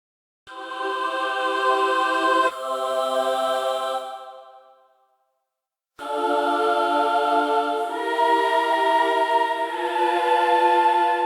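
Angel choir sound effect: two swells of sustained, wordless choral chords. The first changes chord once and fades out about five seconds in; after a second of silence the second swell enters and moves through three or four chords.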